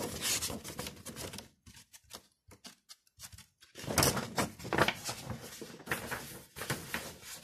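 Rustling and crinkling of a large folded paper sheet being handled and opened out. It stops for about two seconds in the middle, then comes back louder.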